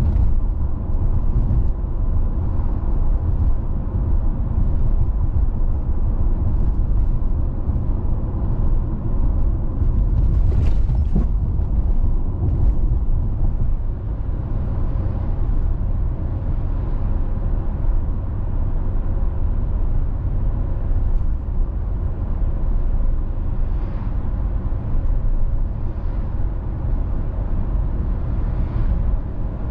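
Road noise of a car driving steadily: a continuous low rumble of tyres and engine. A brief hiss about ten seconds in stands out above it.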